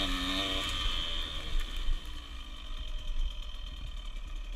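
Small dirt bike's engine running under way, holding a steady note briefly before the throttle eases off about half a second in, then settling to a quieter low rumble about two seconds in.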